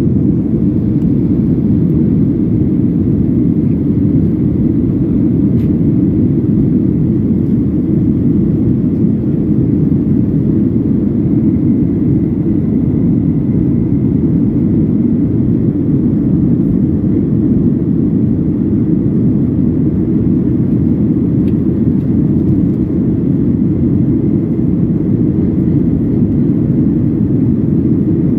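Steady, even cabin roar of a jet airliner climbing after take-off: engine noise and rushing air heard from inside the passenger cabin.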